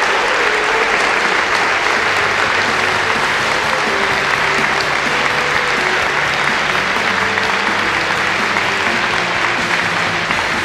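Audience applauding steadily and loudly, with music playing quietly underneath.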